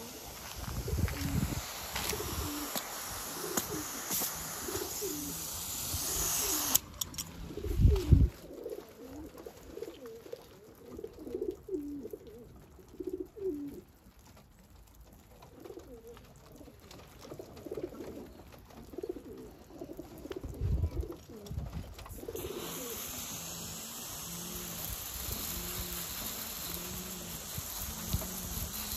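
Domestic pigeons cooing over and over in their loft, while a water spray hisses over the loft for the first several seconds and again for the last several seconds. A loud low thump comes about eight seconds in.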